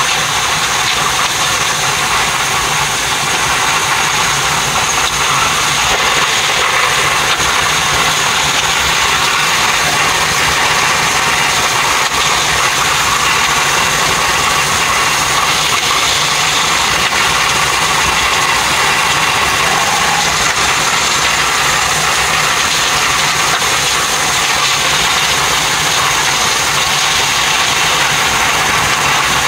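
Steady running noise of a train at speed on electrified main-line track, heard from inside the driver's cab.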